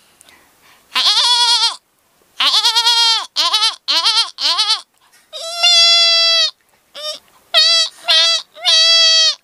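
A person imitating goat bleats with the voice: first a string of quavering, trembling bleats, some long and some short, then about five seconds in a run of steadier, flatter-pitched bleats, one long one followed by several shorter ones.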